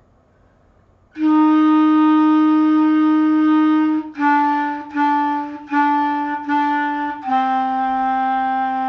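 Clarinet playing a slow stepwise line down, starting about a second in: a long held F, four shorter repeated E's, then a long held D.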